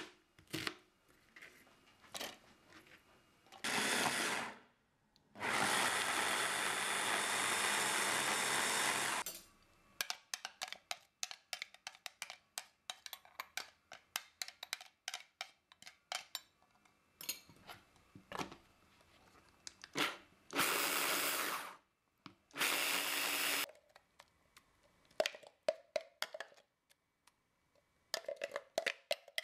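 Electric hand blender's chopper attachment mincing onion in pulses: one short run, one run of about four seconds, and two short runs later on. Knife taps on a plastic cutting board come at the start, and clicks and taps of handling fill the gaps between runs.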